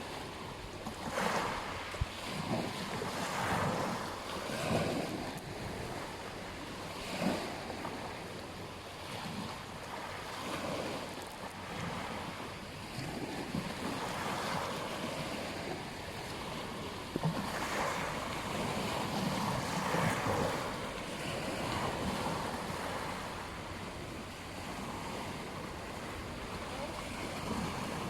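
Ocean surf washing onto a beach, the wash swelling and easing every few seconds, with wind.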